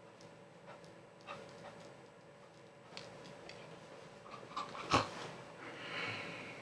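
A man's sneeze: short catching breaths build up, the sneeze itself comes suddenly about five seconds in, and a breathy exhale follows.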